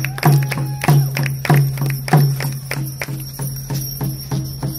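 Hoop dance music carried by a steady drumbeat of about three sharp strokes a second.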